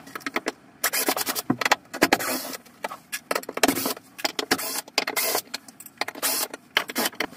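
Cordless drill-driver running in short repeated bursts, backing the screws out of a small floor plate, with knocks and clatter in between.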